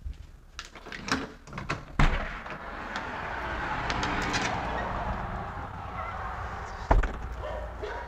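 Front door handle and latch clicking, then the door pulled open with a knock about two seconds in. A steady rush of outdoor noise comes through the open doorway, and the door shuts with a solid thud about seven seconds in.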